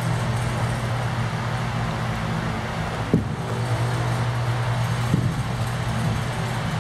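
Steady mechanical hum, like a large building's ventilation fans, with a sharp knock about three seconds in and a fainter one about two seconds later.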